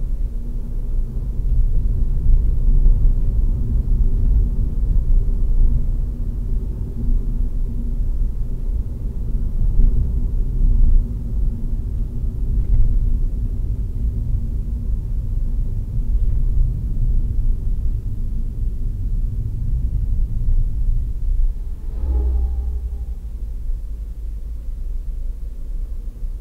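Low, steady rumble of a car's engine and tyres on the road, heard from inside the cabin while driving at about 40–50 km/h. A brief higher-pitched tone sounds near the end.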